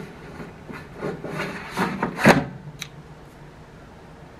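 The drawer of a CRUXGG 9-quart Trizone air fryer, with its center divider fitted, sliding into the housing: a few rubbing scrapes, the loudest a little past two seconds in, then a short click.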